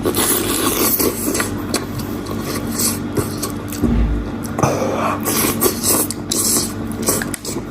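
Close-up eating sounds: irregular wet chewing, smacking and gnawing on goat meat, with a dull low thump about four seconds in, over a steady low hum.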